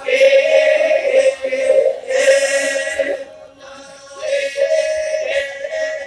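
Group of voices chanting the ma'badong, the Toraja funeral chant, on a long sustained tone in swelling phrases, with a short lull a little past the middle.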